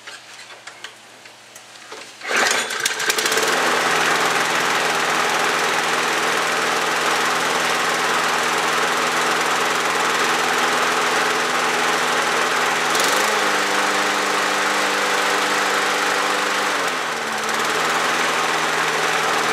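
Briggs & Stratton Quantum single-cylinder engine on a push mower catching on the pull start about two seconds in, then running steadily on its rebuilt carburetor. Engine speed rises a little a few seconds before the end, dips briefly and settles back.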